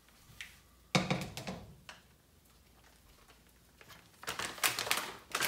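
Plastic frozen-food bag being handled: a sharp rustle about a second in, then dense crinkling of the plastic building up near the end.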